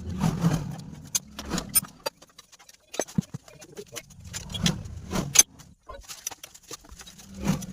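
Metal hand tools clicking and clinking against motorcycle parts at irregular intervals, with a low hum in places.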